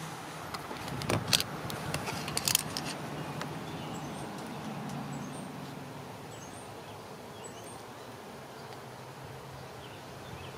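Outdoor garden ambience: a steady low hum with faint high bird chirps around the middle, and a few sharp clicks and knocks in the first three seconds.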